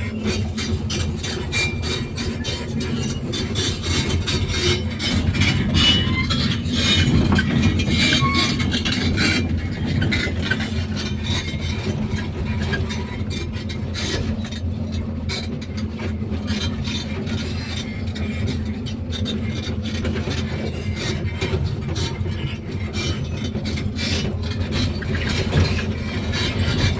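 Excavator at work: its diesel engine runs with a steady hum under constant rapid metallic rattling and clanking.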